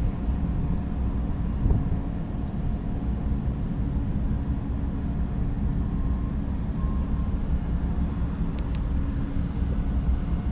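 Steady low machinery hum of a cruise ship, with a few steady tones running through it, and a brief sharp tick about eight and a half seconds in.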